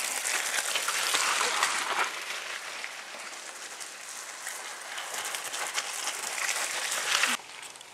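Mountain-bike tyres splashing and squelching through a waterlogged, muddy trail as riders pass close by, a wet hiss with many small crackles. It swells as a rider goes past in the first two seconds and again near the end, then cuts off suddenly.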